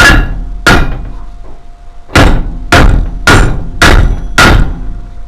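Big hammer driving a new wheel stud into a steel Ford Transit rear hub: seven loud metal-on-metal blows, each ringing briefly. Two blows come close together at the start, then after a pause five more at a steady beat of about one every 0.6 seconds.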